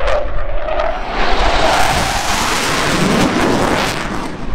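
Fighter jet flying low past overhead: its roar builds, peaks, then drops in pitch as it passes and fades away.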